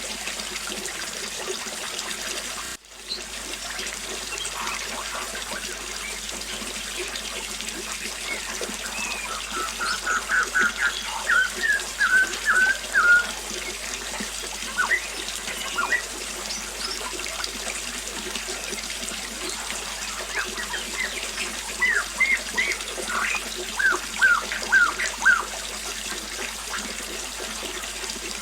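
A small waterfall splashing steadily, with birds chirping over it: a quick run of chirps about ten seconds in and another cluster a little past twenty seconds. The water sound drops out for an instant about three seconds in.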